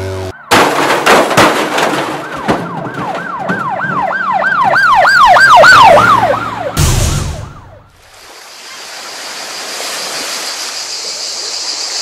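Cartoon sound effects: a rattle of sharp knocks, then a siren in quick rising-and-falling sweeps, about three a second, growing louder, ended by a short loud burst about seven seconds in. After a brief drop, a steady hiss with a high warbling trill.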